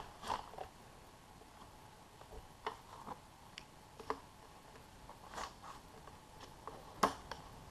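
Scattered light clicks, taps and rustles of hands fitting a foam glider wing onto its metal wing rod and against the plastic fuselage. The sharpest click comes about seven seconds in.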